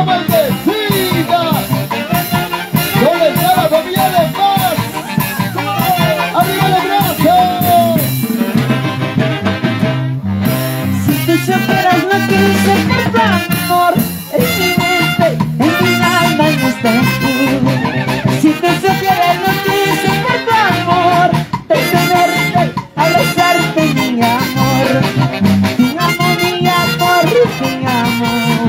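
A live Andean orquesta with saxophones or clarinets over bass and percussion playing a huayno, instrumental with an even dance beat.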